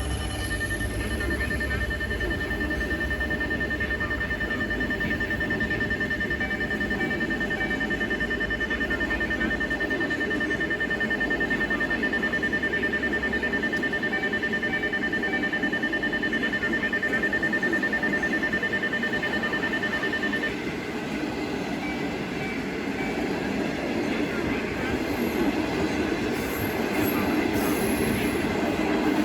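A diesel-hauled train rolling through a level crossing: steady rail and wheel noise, with the locomotive's deep engine rumble fading out about a third of the way through. The crossing's steady high electronic warning tone sounds over it and cuts off about two-thirds of the way through.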